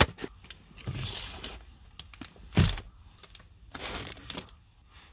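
Cardboard box being opened and plastic-bagged parts being handled: rustling and crinkling of packaging, with a sharp knock about two and a half seconds in as a part is set down.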